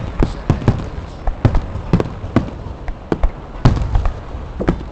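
Aerial fireworks bursting in quick, irregular succession: more than a dozen sharp booms, with a low rumble carrying between them.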